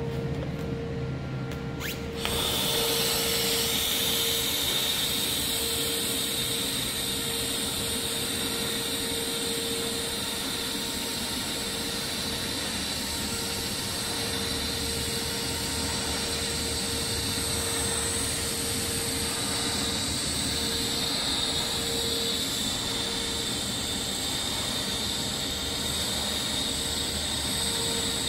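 TIG (argon) welding arc running on a metal pipe joint as a tack weld is laid: a steady hiss and buzz that starts abruptly about two seconds in, over a steady hum.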